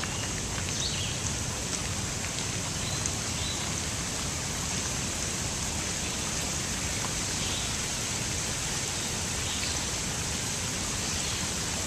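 Water trickling and splashing over rocks in a small hillside runoff, a steady even rush, with a few faint bird chirps now and then.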